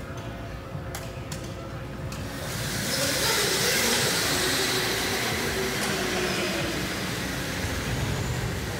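Go-karts pulling away and passing close by: a rushing hiss of motors and tyres that swells about two and a half seconds in, is loudest around three to four seconds, then slowly fades.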